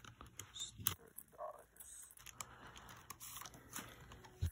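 Clear plastic binder sleeves and paper being handled: crinkling and rustling with scattered small clicks, a sharper click about a second in and a low thump near the end.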